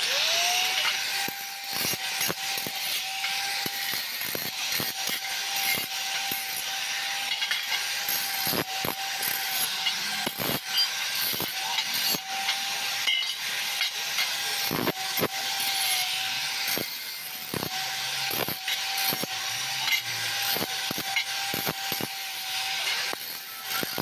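Angle grinder spinning up about the start and running with a steady whine while its disc works steel angle bar, giving a harsh grinding hiss.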